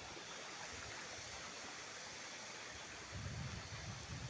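Steady rushing of a small stream flowing through a channel, with a few low bumps about three seconds in.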